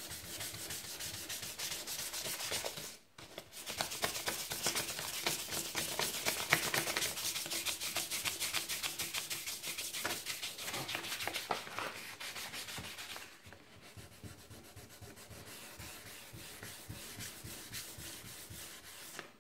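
Hand sanding with a folded sheet of 400-grit sandpaper over the painted aluminium hood edge, rapid back-and-forth rubbing strokes that feather the hard edge of the new primer into the old paint. There is a brief pause about three seconds in, and the strokes grow quieter after about thirteen seconds.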